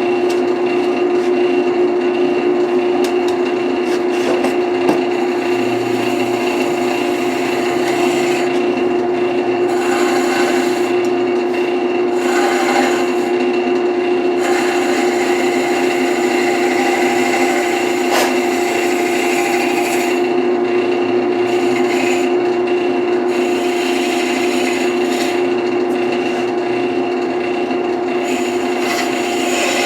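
Wood lathe running with a steady motor whine while a turning tool cuts the spinning wood, a scraping hiss that swells and eases as the tool is worked.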